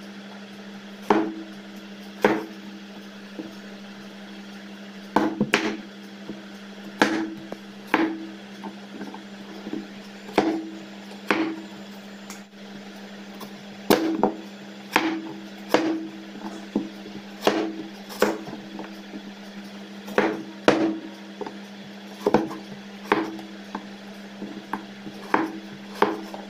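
A broad-bladed kitchen knife cutting raw potatoes into wedges on a wooden chopping board: sharp knocks of the blade striking the board at an irregular pace, roughly one a second, over a steady low hum.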